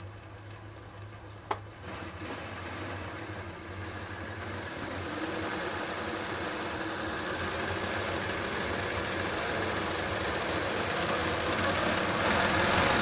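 Hightex 7138 industrial walking foot sewing machine running on its servo motor, driving the bobbin winder as a bobbin fills with thread. A steady mechanical hum that grows gradually louder, with a single click about a second and a half in.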